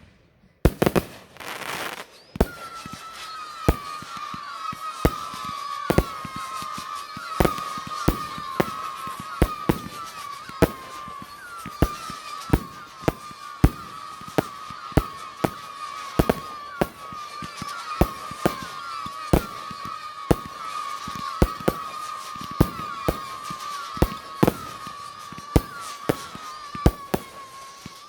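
Fireworks going off: sharp bangs, roughly one or two a second, over a steady, wavering whistle that starts about two seconds in.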